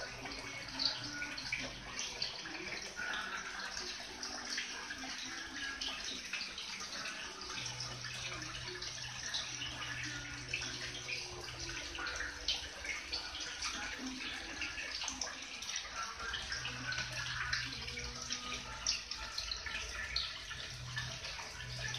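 Water trickling and splashing steadily into a garden koi pond, a continuous fine pattering, with a low hum that comes and goes.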